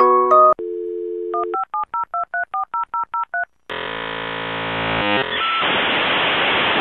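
Dial-up modem connection sound used as an intro sound effect. It opens with a steady dial tone, then a quick run of about a dozen touch-tone dialing beeps, then the modem's handshake screech turning into hiss, all with the thin sound of a phone line. The last notes of a glockenspiel-like chime end just before the dial tone begins.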